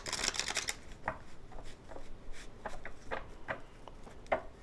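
Tarot cards being shuffled and handled: a quick dense run of card flicks in the first second, then scattered light clicks and taps of the cards.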